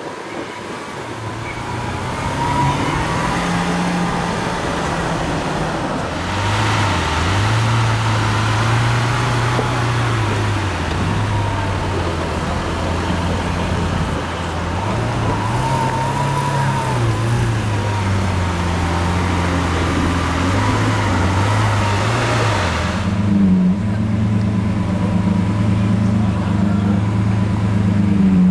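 Lamborghini Aventador SV Roadster's 6.5-litre V12 idling and creeping in street traffic, its low engine note shifting up and down slightly, over general traffic noise.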